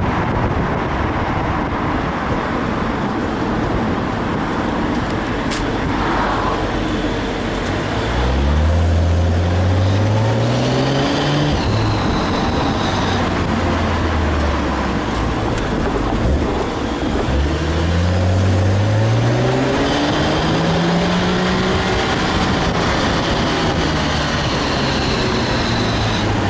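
BMW 135i's turbocharged straight-six and dual-clutch gearbox pulling under acceleration. The engine note rises and steps back down at each gear change, twice. A faint high whine climbs with it: the weird noise that seems tied to engine or gearbox speed rather than road speed.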